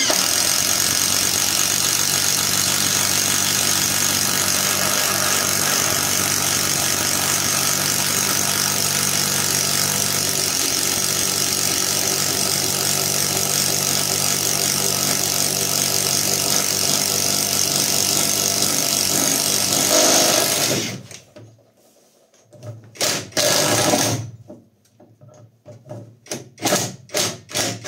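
Catpower 4226 cordless impact wrench hammering steadily as it drives a 30 mm self-cut bit into a wooden beam. It runs for about twenty seconds, then stops, and a few short bursts follow near the end.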